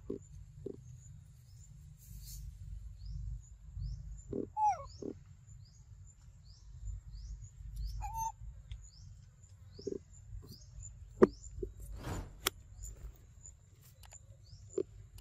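Forest ambience: a short, high, rising chirp repeats about every half second over a faint steady high tone, with a louder call a little over four seconds in. A few sharp clicks come near the end, one of them the loudest sound.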